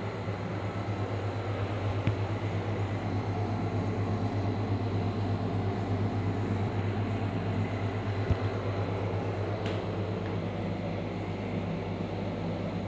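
Steady low hum with an even hiss over it, and a faint click about two seconds in and another about eight seconds in.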